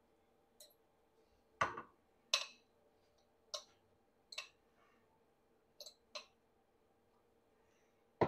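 Metal fork clinking against white ceramic bowls while ramen noodles are lifted out and portioned between them: about seven short, sharp clicks at uneven intervals, over a faint steady hum.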